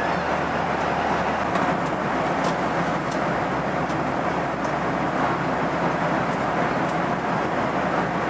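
Steady jet airliner cabin noise in flight: an even rush of air and engine sound.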